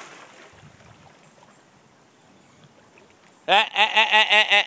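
Faint water sloshing as a retriever swims out across a pond. About three and a half seconds in, a loud, rapid run of about six pitched, voice-like calls lasts about a second.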